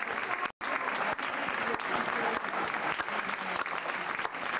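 Spectators in a sports hall applauding, a dense patter of many hands clapping, with a brief total cut-out in the sound about half a second in.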